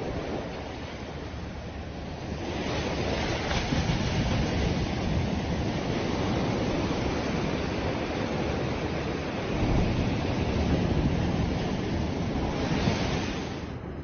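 Sea surf breaking and washing up a sandy shore, a steady rushing wash that swells twice and eases, with wind on the microphone adding a low rumble.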